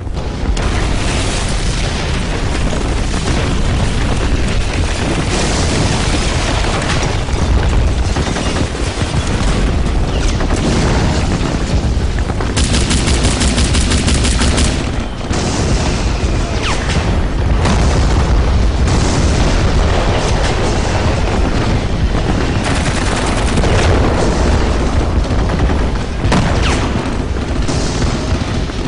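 Battle sounds: continuous booming explosions and volleys of gunfire over a deep rumble, with a rapid, evenly spaced burst like machine-gun fire lasting a couple of seconds about halfway through.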